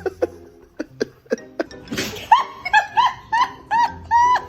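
A few light clicks, then a short sneeze from the dog about two seconds in, followed by a quick run of high-pitched laughter, about seven rising-and-falling laughs in a row.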